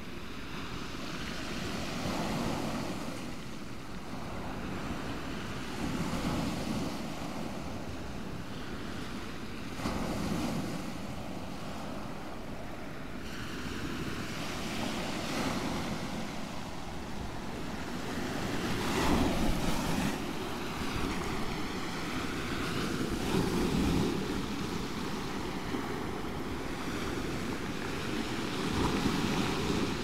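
Sea waves breaking on a shingle beach one after another, each swell of surf followed by water tumbling back through the pebbles, over a steady rush of surf. The waves come about every four seconds, the loudest about two-thirds of the way through.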